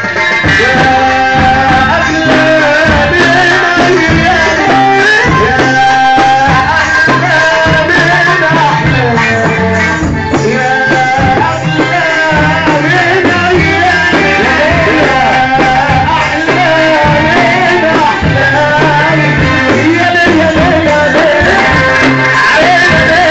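Loud live Middle Eastern party music: an electronic keyboard playing the melody over a steady drum beat, with a man singing through a microphone and PA.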